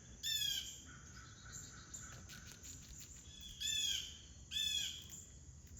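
Blue jay calling: three short, harsh, downward-sliding calls, one right at the start and two close together about four seconds in.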